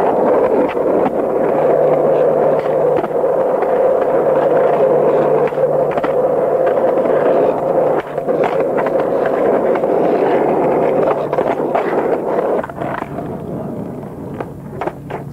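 Skateboard wheels rolling steadily on rough asphalt during freestyle riding. Near the end the rolling gets quieter and several sharp clicks of the board are heard.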